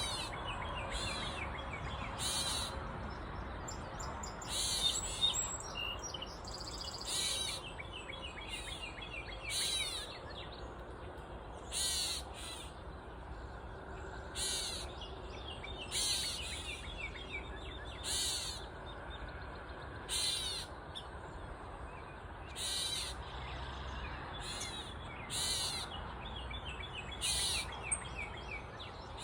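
Grey catbird giving a short, harsh call over and over, about once every two seconds.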